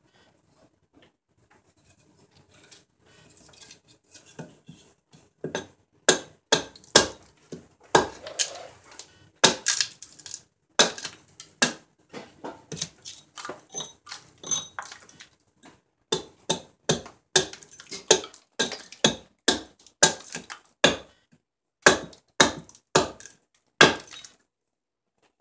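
Small hatchet chopping the sides of a silver birch ladle blank held on a wooden chopping block, knocking the sides down to shape. The sharp chops come about two or three a second with short pauses, starting about five seconds in after a quiet start.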